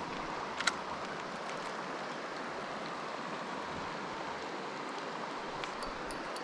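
Small mountain trout stream flowing: a steady rush of water, with one brief click under a second in.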